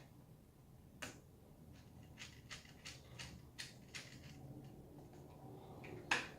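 Small sharp clicks and taps from hand work on a laptop's internals: one about a second in, a quick run of them through the middle, and a louder click near the end.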